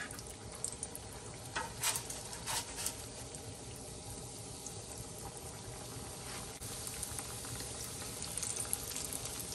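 Yeast donuts frying in shallow hot oil in a cast-iron skillet: a steady bubbling sizzle with a few light clicks early on. The sizzle grows a little louder about two-thirds through as more dough goes into the oil.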